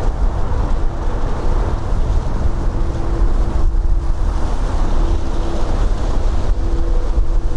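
Strong wind buffeting the microphone: a loud, steady low rumble, with a faint hum that comes and goes.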